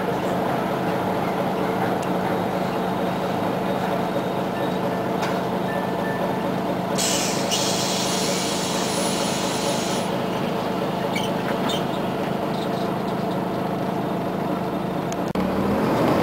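Diesel engine of a Scania CN94UA OmniCity articulated city bus idling steadily, heard from inside the bus, with a few seconds of compressed-air hiss in the middle. Near the end the engine note changes and rises as the bus pulls away.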